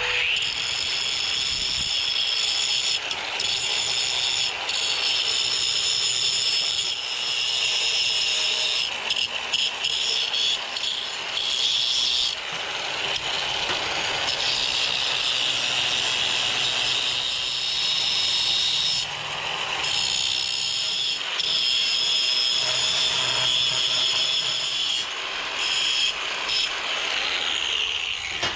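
Cordless angle grinder running with a steady high whine as it grinds down the broken edges of a cast-iron band saw table support, prepping them for brazing. The sound dips briefly a few times.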